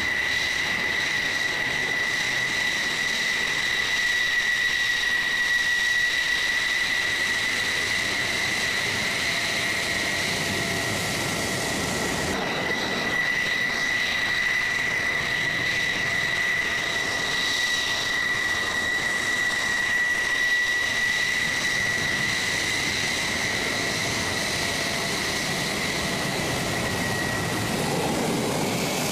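F-16 Fighting Falcon's single turbofan jet engine running steadily as the fighter taxis: a steady high whine over a constant rush of jet noise.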